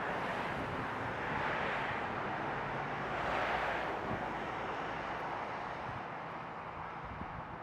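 Rushing noise of a passing vehicle with a low engine hum beneath, swelling twice and then fading.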